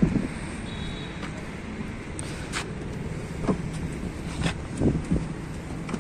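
A few knocks, clicks and thumps as a person climbs into a car's driver seat and settles in, over steady outdoor background noise.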